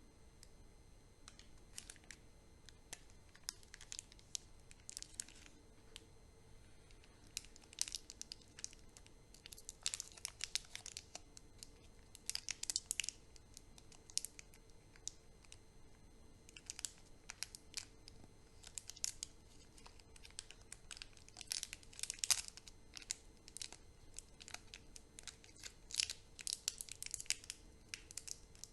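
Chocolate and candy wrappers being torn open and crinkled by hand, in irregular bunches of crisp rustling with short pauses between.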